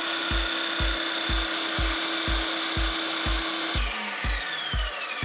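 Ninja Creami motor running with a steady whine as its blade churns a frozen smoothie pint. About four seconds in it cuts off, and the whine falls away as it spins down. A steady thumping beat of background music runs underneath.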